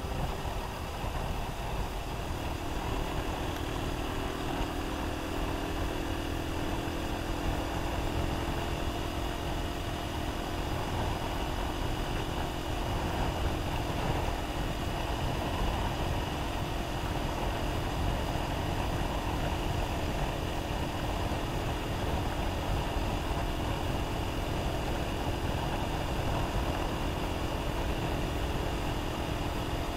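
Enduro motorcycle engine running at a steady cruising pace, its note holding level, mixed with constant wind noise on the microphone.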